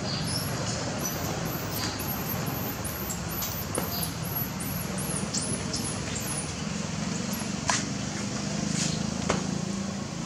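Steady low outdoor background rumble, with a few short sharp clicks about four, eight and nine seconds in.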